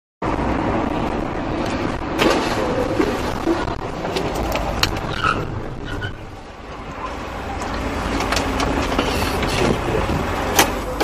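Road and engine noise inside a car moving at highway speed, recorded by its dashcam, with scattered sharp clicks and knocks. The noise dips about six seconds in and builds again as the car slows hard.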